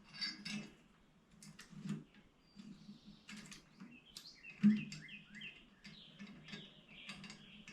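Small birds chirping in quick short calls, mostly in the second half. There are scattered light clicks and one sharp knock a little over halfway through, the loudest sound, from bicycle parts being handled.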